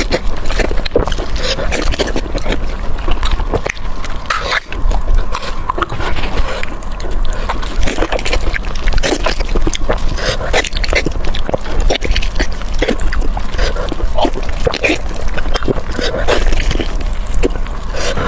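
Close-miked wet chewing and smacking of chicken being eaten, a quick, uneven run of short clicks and squelches.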